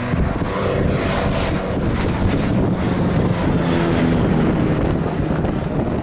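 Robin DR400-140B light aircraft's four-cylinder piston engine and propeller droning on a low pass, growing louder as it nears. Wind buffets the microphone.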